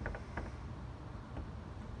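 A few small sharp clicks from a locksmith's tools working in a door lock that is tight and corroded, over a steady low rumble.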